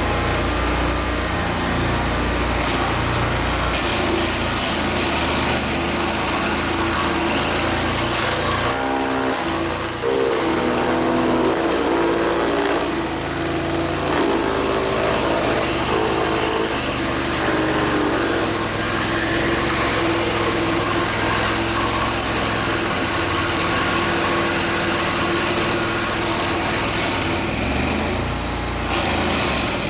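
An engine runs steadily throughout. Partway through, its pitch dips and rises several times, as if it were being worked or revved.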